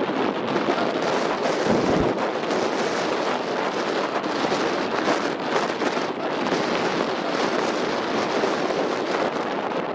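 Wind buffeting the microphone: a steady rushing noise, with a stronger low gust about two seconds in.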